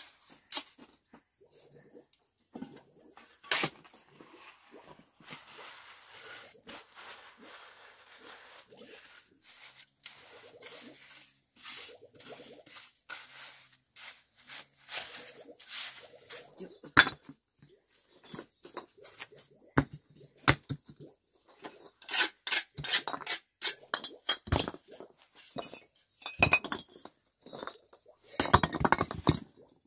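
Steel shovel and hand trowels scraping and patting wet cement mix in a shallow trench, with scattered sharp knocks. In the second half come runs of clinks and knocks from hollow fired clay bricks being handled and set down on a pile, ending in a longer clatter near the end.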